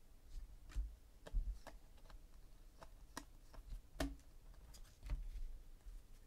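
Panini Contenders football trading cards being handled and flipped through by hand: scattered sharp clicks and light snaps as cards are slid off the stack, with a few dull thumps from the handling.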